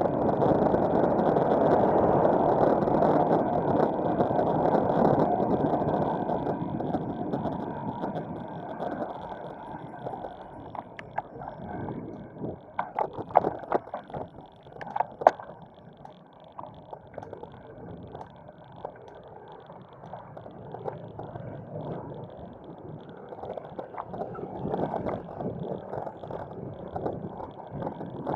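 Steady rushing noise of a moving bicycle ride, wind over the microphone mixed with road sounds. It is loudest for the first several seconds, then eases off, with a few sharp clicks about halfway through.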